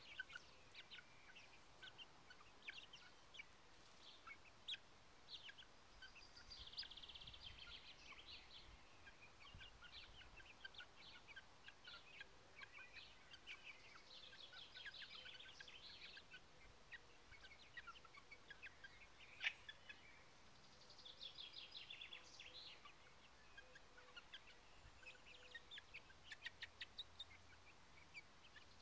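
Nine-week-old crested chickens peeping softly: many short high chirps, with bursts of rapid trilling every few seconds. One sharp click about two-thirds of the way through.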